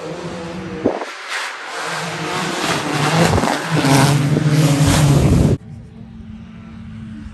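Rally car at full throttle coming down the stage, its engine and tyre noise swelling to the loudest point as it reaches and passes, then breaking off abruptly. After the break, a more distant rally car engine runs steadily and much quieter.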